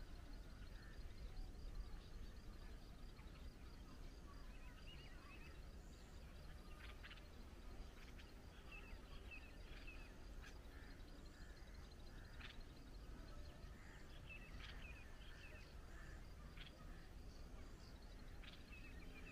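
Faint, scattered short chirps and brief trills of small birds, coming in clusters through the middle and later part, over a low steady rumble.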